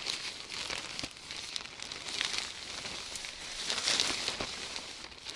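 Fabric of a Naturehike Mongar 2 tent's fly rustling and crinkling as it is handled, in uneven bursts, a little louder a little under four seconds in.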